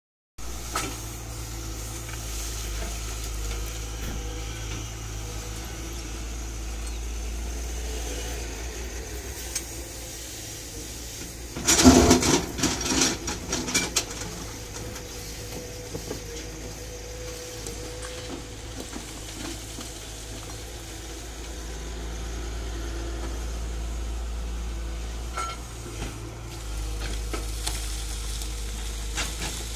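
Tata Hitachi EX200LC hydraulic excavator's diesel engine running steadily. About twelve seconds in comes a burst of loud knocking and clatter as the bucket scrapes and strikes rock, lasting about two seconds.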